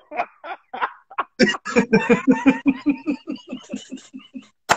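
Two men laughing hard, a fast run of loud "ha" pulses building about a second in. A single sharp click near the end.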